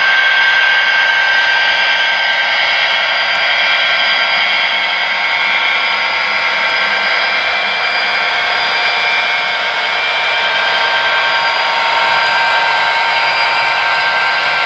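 HO scale model freight train running: a steady whirring hiss with a few steady high whining tones, from the locomotive's motor and the cars' wheels rolling on the track.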